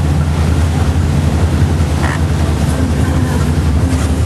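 Fishing boat's engine droning steadily and low, with no change in pitch or level.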